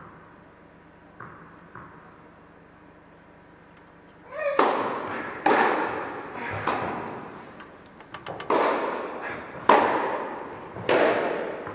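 Tennis ball struck back and forth by racquets in a rally on an indoor clay court: about six hard hits a little over a second apart starting about four seconds in, each echoing in the hall, with faint knocks before the rally starts.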